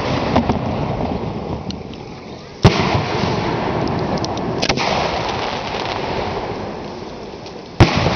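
Hand-fired fireworks shells going off close by: three sharp bangs spaced a few seconds apart, the first and last loudest, over a continuous din of further firing and bursts.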